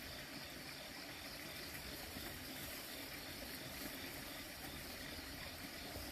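Faint, steady background hiss with no distinct event.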